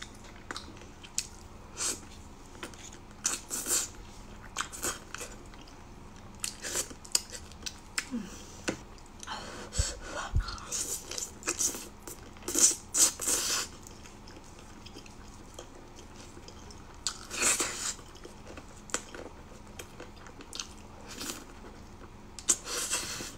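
A person chewing, biting and sucking on braised chili chicken feet: irregular mouth smacks and clicks, with a few louder clusters.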